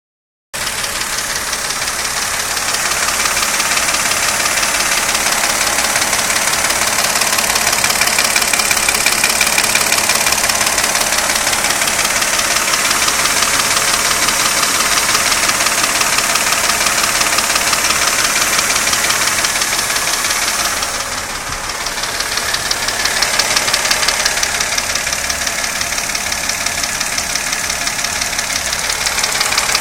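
Engine, the '112', running steadily with a fast, regular knock in its sound. The level dips briefly about 21 seconds in, then comes back.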